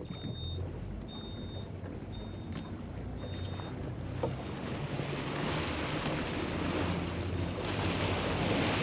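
Boat engine running under way, with water rushing along the hull and wind; the rush of water grows louder from about five seconds in as the boat picks up speed. Four short high electronic beeps sound about a second apart in the first few seconds.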